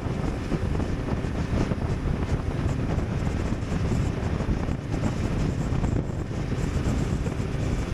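Wind rushing over the microphone on a moving motorcycle, a steady buffeting noise with the engine and road noise underneath.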